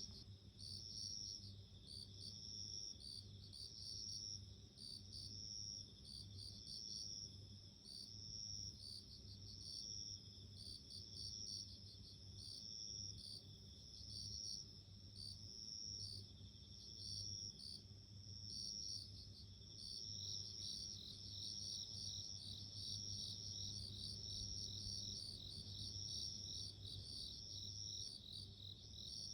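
Japanese bell crickets (suzumushi) singing: several overlapping high, ringing, pulsed trills repeating without a break, over a faint low hum.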